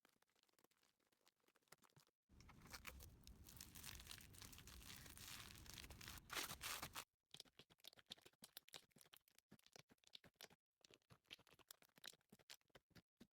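Slime being squished and pressed by hand, giving faint crackling and popping clicks. A denser, louder run of crackling comes from about two to seven seconds in.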